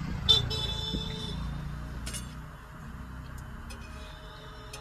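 Metal cooking utensils clinking during roti-making on a portable gas stove: a sharp clink about a third of a second in that rings for about a second, a second ringing clink about two seconds in, then a few light ticks, over a low steady hum.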